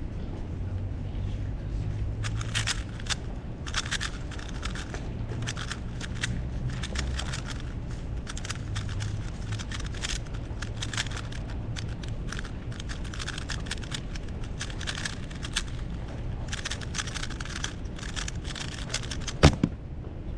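Rubik's Cube being turned fast by hand: quick runs of plastic clicking broken by short pauses. Near the end comes a single sharp knock, louder than the turning.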